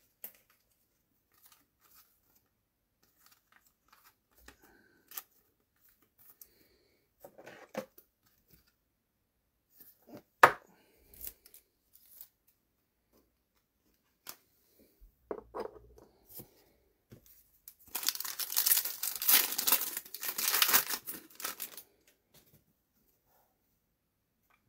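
A Topps Chrome trading-card pack's wrapper being torn open, with about four seconds of crinkling and ripping near the end. Before it come scattered soft clicks of card handling and one sharp click about ten seconds in.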